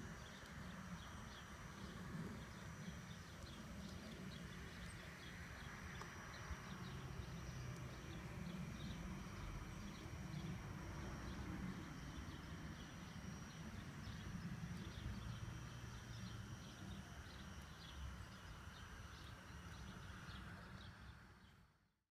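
Large-scale USA Trains New York Central PA-1/PB-1 model diesel set, analog version with no sound module, running on garden-railway track: a faint, steady rhythmic clicking of wheels over the rails with a low rumble. It fades out near the end.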